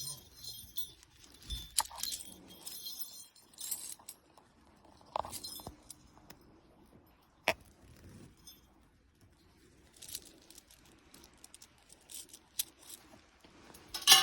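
Intermittent small metallic jingling and clinking, with scattered sharp clicks. Right at the end comes a louder ringing strike.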